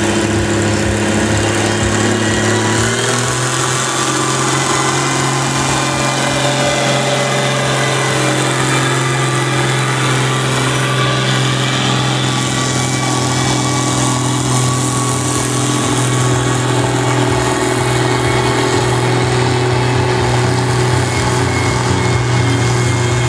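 Farm tractor engine pulling a weight-transfer sled under heavy load. It revs up about three seconds in, then holds a steady, loud drone as it drags the sled down the track.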